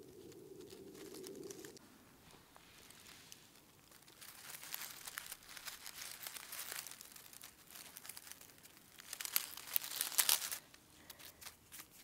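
Footsteps crunching and crackling through dry leaf litter and twigs on a woodland floor, picking up from about four seconds in and loudest around nine to ten seconds. A low steady hum fades out about two seconds in.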